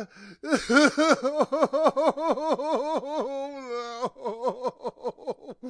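A person crying with rapid, rhythmic sobs, about five a second. They break into a held wail about three seconds in, then go on with quicker, fainter sobs.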